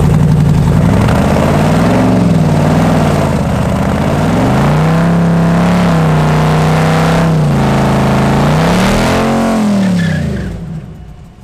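L83 5.3-litre V8 in a swapped Mazda revving hard at the drag-strip start, stalled up against a tight torque converter. The engine note climbs and dips, holds steady for a few seconds, rises once more, then falls away near the end as the car leaves the line.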